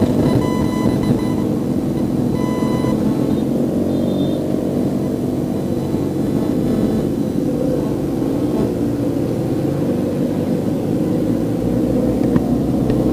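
Motor vehicle engine running steadily, with a few short electronic beeps in the first three seconds.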